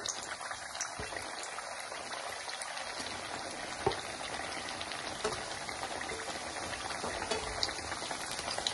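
Moong dal dough pieces deep-frying in hot oil in a kadhai: a steady sizzle with scattered crackles, and a sharper pop about four seconds in.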